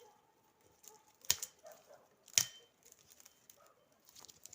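Dry wood cracking as firewood is gathered: two loud sharp cracks about a second apart, with a few lighter snaps and ticks around them.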